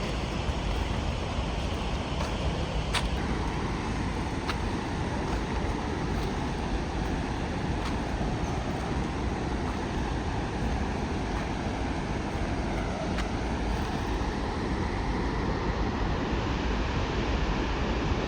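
Steady roar of a large waterfall in heavy monsoon flow, the water crashing down in one unbroken rush with no change in level.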